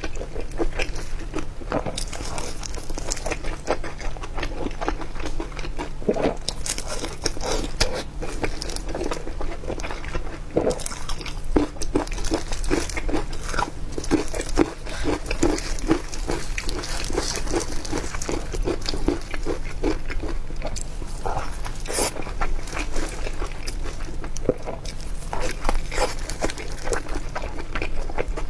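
Close-up chewing and biting of food, a steady run of crisp crunches and wet mouth sounds.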